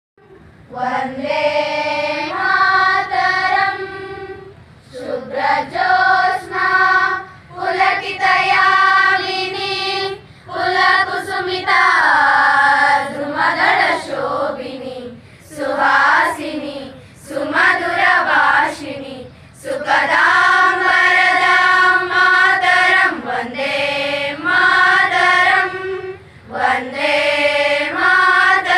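A choir of schoolgirls singing together, in phrases of a few seconds with short breaks between them.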